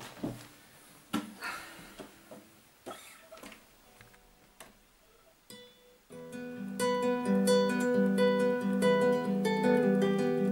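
A few soft knocks and rustles, then about six seconds in a nylon-string classical guitar starts being fingerpicked: a steady, repeating pattern of plucked notes.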